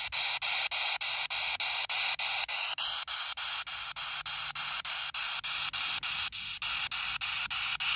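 P-SB7T spirit box sweeping through radio frequencies through its small speaker: hissing static chopped into short pulses about five times a second as it scans from station to station.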